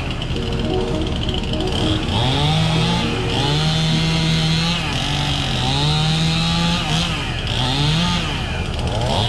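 Gas chainsaw running at high revs, its engine pitch rising, holding and dropping several times as the throttle is worked.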